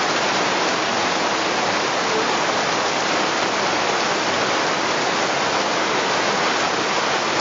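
Heavy rain pouring down: a steady, even hiss that does not let up.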